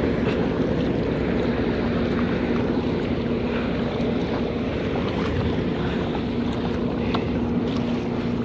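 Wind buffeting the microphone and water lapping around a paddled kayak, over a steady low hum from the machinery of the large ship moored nearby. Faint splashes and ticks come now and then as the paddle works.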